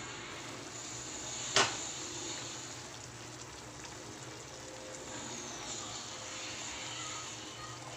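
Chicken stew simmering in a pot, a steady bubbling hiss, with one sharp clink of the glass pot lid about a second and a half in as it is lifted off.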